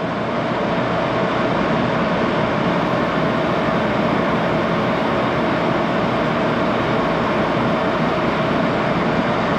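1941 Axelson 14x30 engine lathe running at about 628 rpm while taking a light turning cut, 7 thousandths deep, on a low-carbon steel bar. It gives a steady machine noise with a faint constant hum.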